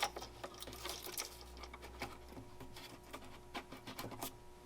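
Faint scattered small clicks and rustles of hands handling tools and wiring at an electrical outlet, over a faint steady hum.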